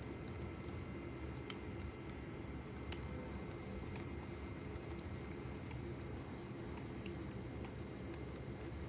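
Ultrasonic cool-mist humidifiers running on full: a faint steady hum with small scattered ticks like water droplets.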